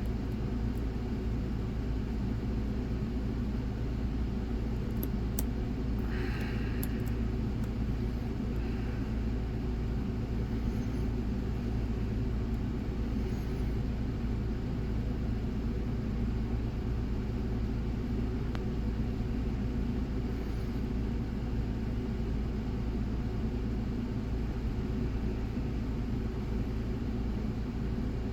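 A steady low hum and rumble, with a few faint light clicks about five to seven seconds in.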